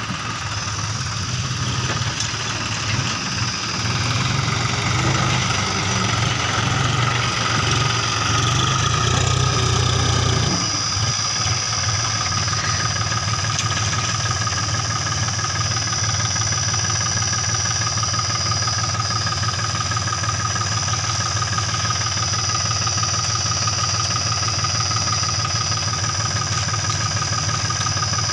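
John Deere 5050D tractor's three-cylinder diesel engine running steadily while the tipping trolley is raised to dump its load of mud. It runs heavier and louder for the first ten seconds or so, then changes abruptly to a lighter, even note with a steady high whine.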